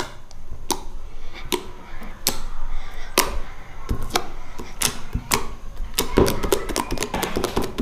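Fluffy shaving-foam slime squished and pulled in the hands, giving sharp clicking pops about one to two a second that come thick and fast near the end.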